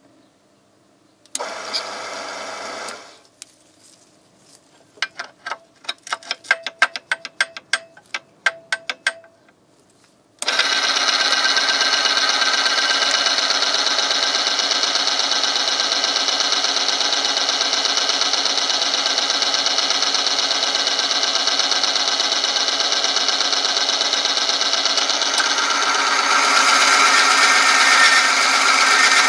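Bench oil-film friction tester running: its electric motor turns a ring through the oil bath while a steel test sample is pressed against it by the weighted lever arm, giving a steady loud grinding rub that grows louder near the end as another weight is loaded on. Before the run, a short burst of the same noise about a second and a half in, then a string of sharp clicks.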